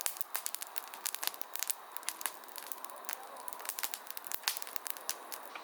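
Wood fire crackling, with faint irregular pops and snaps over a soft hiss.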